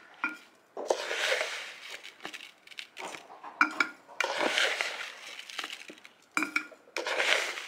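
Brown sugar poured from a plastic container into glass jars of pitted plums, a grainy hiss in three pours. Each pour is preceded by a short glassy clink as the container touches the jar.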